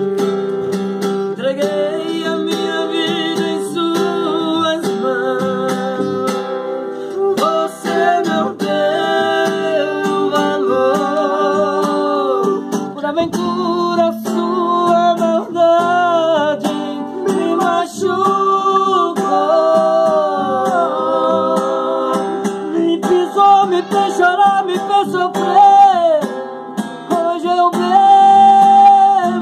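A man singing a sertanejo modão ballad, accompanying himself on a strummed acoustic guitar, with vibrato on his held notes.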